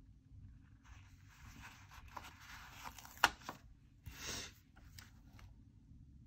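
A paper sticker peeled from its backing sheet and pressed onto a planner page, with light rustling of paper. A sharp tap comes about three seconds in, and a short rustle just after four seconds.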